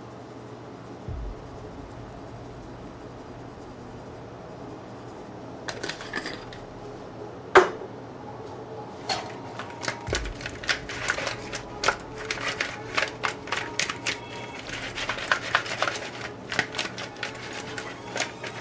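Hands tossing sauce-coated chicken pieces in a glass bowl: a run of short wet clicks and smacks, with one sharp knock against the bowl about halfway through. The clicking gets denser in the second half.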